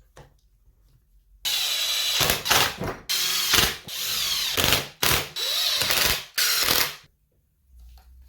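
Power drill running in about six short bursts, its motor whine wavering in pitch.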